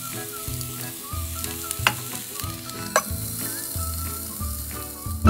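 Ghee poured onto a hot lump of charcoal in a small steel bowl, sizzling with a steady hiss: the dhungar smoking step for the kebab mince. Two sharp clicks come about two and three seconds in.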